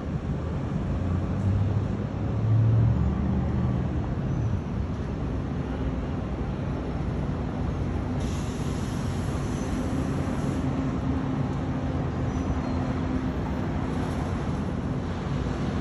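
Steady low rumble and hum of a cruise ship's machinery during docking, louder for a moment about two seconds in. A faint high hiss comes in briefly about eight seconds in.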